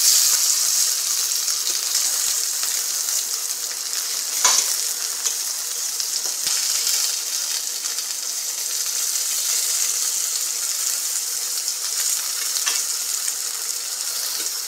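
Hot dogs and bologna sizzling in a stainless steel frying pan, a steady high hiss. Through it come a few sharp clinks of a metal fork against the pan as the pieces are turned, the loudest about four and a half seconds in.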